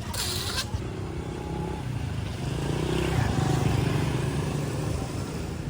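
A motorbike engine going past close by, growing louder to a peak about halfway through and then fading. A short hiss comes at the very start.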